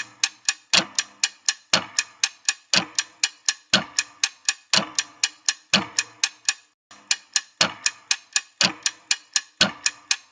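Ticking-clock countdown sound effect: even sharp ticks, about four a second, with a heavier beat about once a second. It breaks off briefly about two-thirds of the way through, then resumes.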